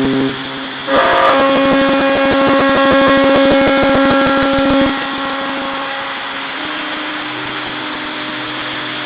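Navy ships' typhon horns sounding long, overlapping blasts. A stronger, higher horn comes in about a second in and holds for about four seconds over a lower, steady horn, which keeps sounding after the higher one stops.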